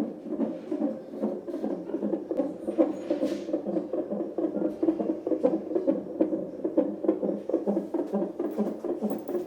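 Unborn baby's heartbeat picked up by a CTG monitor's Doppler ultrasound probe: a fast, even, whooshing pulse.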